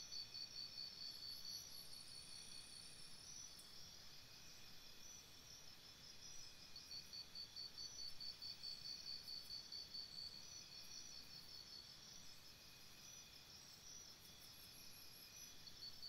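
Faint chorus of forest insects: several high-pitched, fast-pulsing trills overlapping, the loudest one breaking off and starting again a few times.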